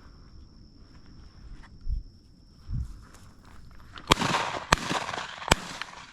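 Three shotgun shots in quick succession, a little over half a second apart, about two-thirds of the way in. Two low thumps come earlier.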